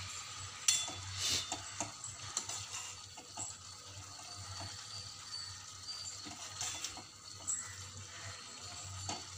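Metal ladle stirring vermicelli through hot water in a metal pan: a wet sloshing with irregular clinks and scrapes of the ladle against the pan, the sharpest about a second in.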